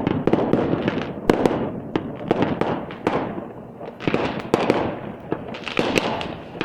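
Aerial fireworks display: shells bursting in a rapid, overlapping series of sharp bangs and crackles, each report trailing off in a rumbling echo, with a louder bang about a second in.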